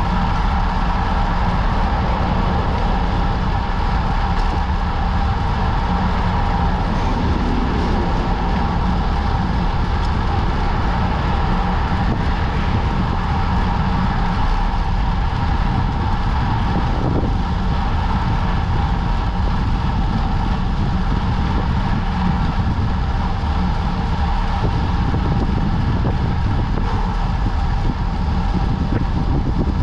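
Steady rush of wind on the microphone with tyre and road noise from a road bike ridden at about 50 km/h on asphalt.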